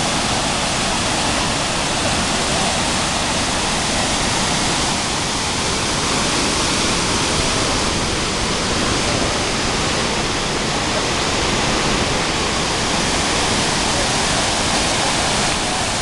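Large waterfall pouring over rock ledges into churning white water: a loud, steady rushing.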